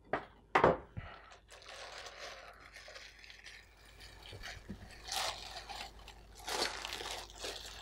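Plastic oven bag crinkling and rustling as it is bunched up by hand, after a short knock or two in the first second.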